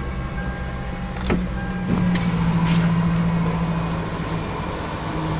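Rebuilt sports car engine idling steadily, with two sharp clicks in the first two seconds and the engine note briefly a little higher and louder after the second one.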